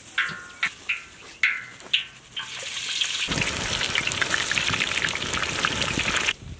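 A few short, sharp ringing sounds, then raw potato sticks going into hot oil in an iron kadai set off loud sizzling and crackling bubbling. The sizzling builds from about two and a half seconds in and cuts off suddenly near the end.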